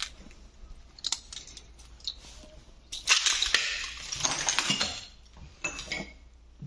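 Footsteps crunching over broken glass and debris on a floor, with scattered clinks of glass shards. A dense stretch of crunching about three to five seconds in is the loudest part.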